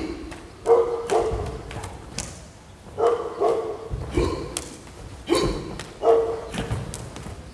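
Bajiquan partners slamming bodies together in tie shan kao shoulder-and-back strikes: heavy thuds in pairs about every two and a half seconds, each with a short sharp shout.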